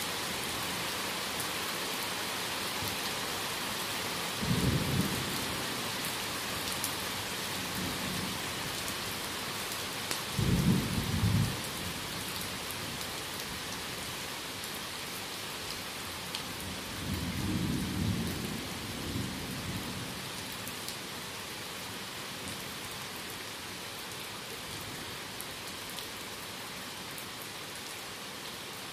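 Thunderstorm in a forest: steady rain hissing throughout, with three low rumbles of thunder about five, ten and seventeen seconds in. The middle roll is the loudest and the last the longest.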